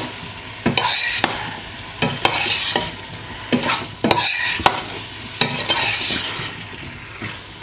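Metal spoon stirring diced vegetables and chicken frying in oil in a stainless steel pot, with sizzling that swells as the food is turned and repeated clinks of the spoon against the pot.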